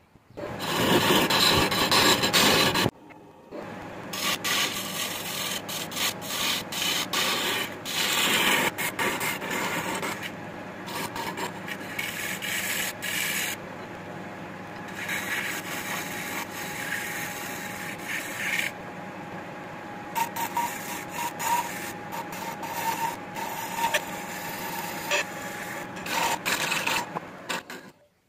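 Turning tool scraping and cutting a jackfruit-wood vase spinning on a wood lathe, an uneven rasping with many short strokes. It is loudest for the first few seconds, dips briefly, then carries on and cuts off suddenly near the end.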